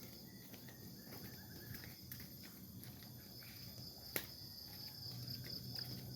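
Insects chirring steadily in a high, continuous trill, with one sharp click about four seconds in.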